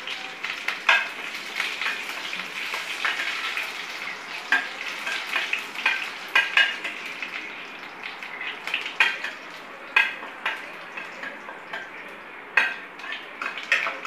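A tempering frying in hot oil in a stainless steel pan: a steady sizzle with sharp crackles, and a steel ladle stirring and clinking against the pan.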